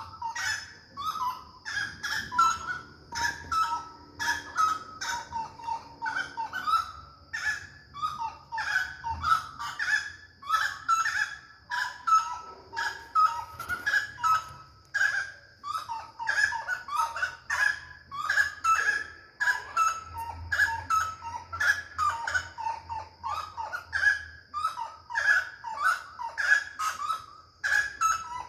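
A group of large, fowl-like birds calling over and over in a continuous chorus of short notes, several a second, with a steady high-pitched tone, like an insect's buzz, running underneath.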